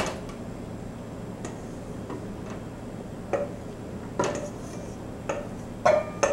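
Wooden spoon knocking and scraping against a stainless steel mixing bowl as pear filling is scraped out into a glass baking dish: a handful of separate knocks, the loudest near the end, some leaving the bowl ringing briefly.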